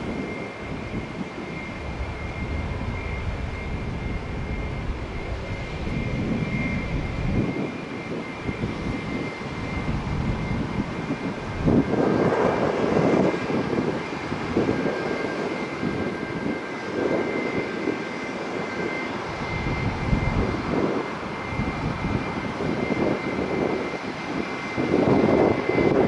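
Boeing 787 Dreamliner jet engines on landing, a steady high whine over a rumbling roar. The roar grows louder about halfway through as the airliner touches down and rolls out.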